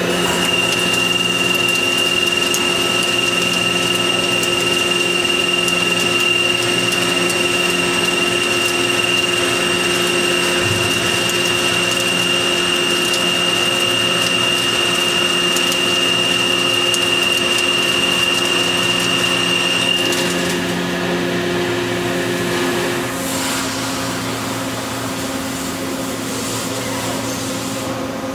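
Kitamura Bridgecenter-10 double column machining center running a cut behind its enclosure window, with coolant spraying against the glass: a steady machine noise with a high whine that stops about twenty seconds in, and the noise drops a little a few seconds later.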